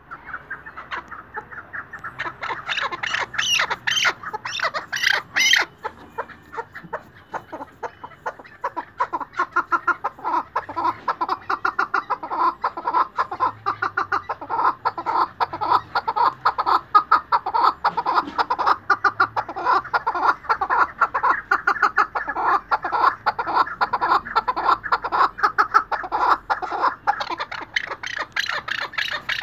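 Chukar partridge calling: a long, rapid run of short repeated notes, with a few louder, harsher notes about two to five seconds in.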